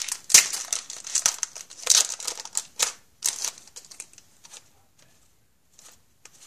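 Foil wrapper of a hockey card pack crinkling and tearing as it is opened, in a run of quick crackly bursts for about three and a half seconds, then dying down to a few faint rustles.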